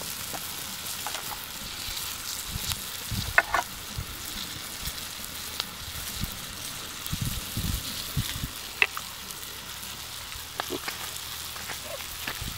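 Chopped tomatoes and onions frying in an oiled wok, a steady sizzling hiss broken by scattered sharp pops, the loudest about three and a half and nine seconds in.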